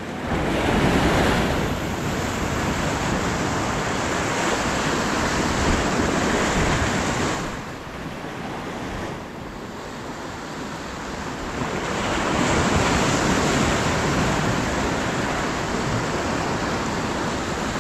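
Sea surf washing and breaking over the boulders of a rock jetty, rising and falling in surges, with wind on the microphone.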